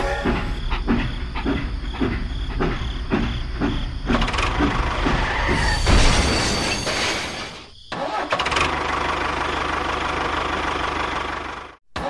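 An engine running with a chugging beat of about three a second, then a steadier, noisier run. The sound breaks off abruptly twice, about two-thirds in and near the end.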